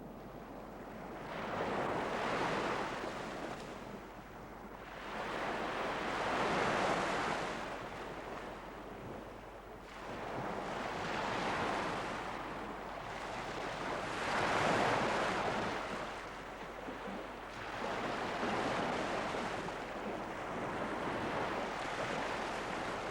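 Surf washing onto a beach: waves swell and fade over and over, one every four to five seconds.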